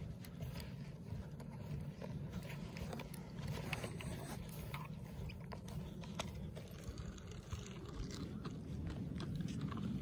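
Footsteps crunching in fresh snow, an irregular run of small crunches over a steady low rumble.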